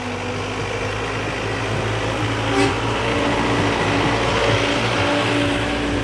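A motor vehicle engine running steadily, a low hum with a few steady tones over a hiss, with one short knock about two and a half seconds in.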